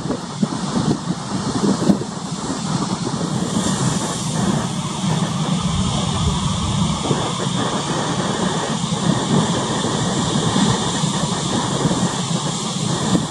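Steady coastal ambience of wind and choppy sea: a low rumble under a rushing hiss that grows stronger about three and a half seconds in.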